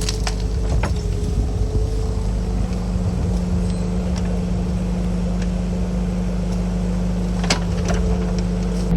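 Bobcat 325 mini excavator's diesel engine running steadily, with a few sharp clanks from the arm and bucket linkage, whose pins are worn and loose.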